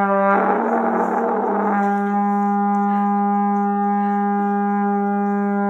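A trombone played by a first-time player: a short, rough, airy note with a quick change of note at first, then from about two seconds in a single clean note held steady.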